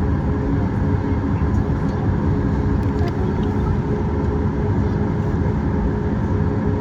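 Boeing 737 MAX 8's CFM LEAP-1B jet engines running, heard as a steady, loud rumble inside the cabin, with a few steady humming tones over it.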